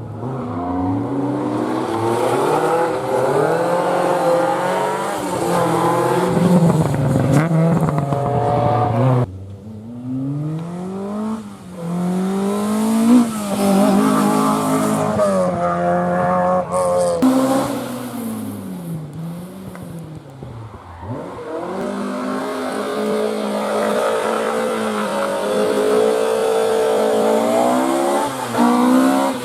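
Rally car engines revving hard, the pitch climbing and falling again and again as the cars accelerate and lift off. The sound changes abruptly about nine seconds in.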